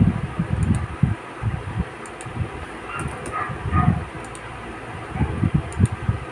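Typing on a Chromebook laptop keyboard: irregular soft key taps and dull thumps, with a few faint sharp clicks.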